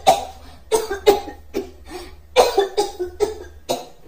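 A girl coughing over and over: about ten short, dry, hacking coughs in quick clusters, the sign of a dry cough.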